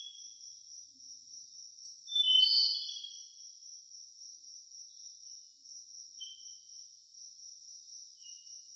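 Forest ambience: a steady, high-pitched insect chirring with short bird chirps over it. The loudest chirp comes about two seconds in, and fainter ones follow near the middle and the end.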